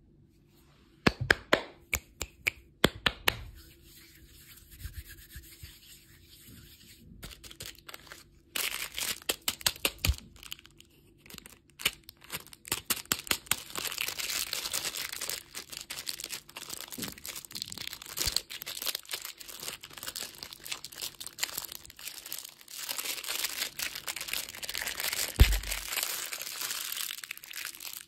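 Clear plastic wrapper of a chocolate lollipop crinkling and tearing as it is peeled off by hand. A few sharp crackles come first, then near-continuous crinkling from about a third of the way in, with one low thump near the end.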